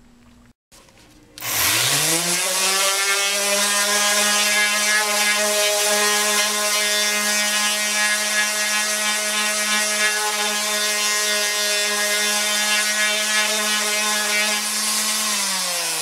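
Random orbital sander with a 100-grit disc starting up about a second and a half in, rising quickly to a steady whine as it sands old decals off a plastic motorcycle fairing, then winding down in pitch near the end.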